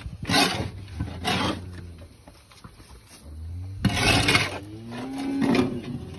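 Caked wet feed and manure being scraped out of a metal cattle feeder, in about four rough scraping strokes. Cattle moo low in between.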